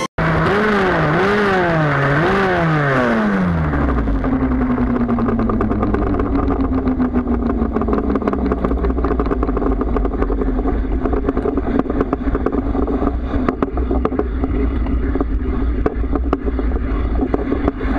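Motorcycle engine heard up close. Its note rises and falls three times in quick succession, then drops away over about a second as the bike slows. It then runs on at a lower, steady note with a rattling clatter.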